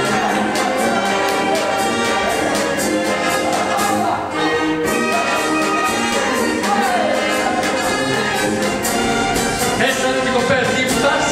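Lively orchestral music led by brass, with a steady beat.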